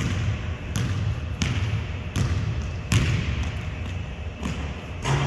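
A basketball dribbled on a hardwood gym floor, one bounce about every three-quarters of a second for the first three seconds. The bounces then thin out before one more near the end.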